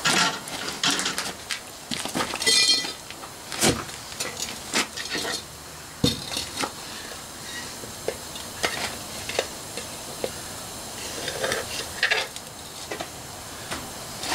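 Molten brass being poured from a steel crucible into sand moulds: irregular clinks and knocks of the crucible and its lifting bail, with one brief metallic ring, and crackling and sizzling as the hot metal meets the sand.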